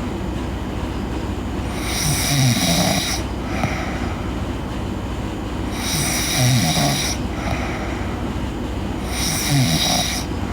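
A girl snoring in her sleep: three snores, about one every four seconds, each a low rasp that drops in pitch over a breathy hiss. A steady low hum runs underneath.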